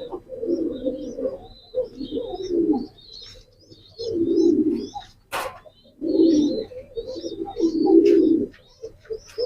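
Pigeons cooing in repeated bouts of about a second each, with short high chirps from birds between and over the coos, and one sharp click about five seconds in.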